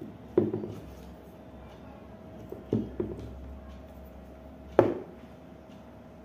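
Sharp knocks of a small coffee machine pump and its parts being handled and set against a wooden tabletop: one about half a second in, a quick double knock around three seconds, and another near five seconds.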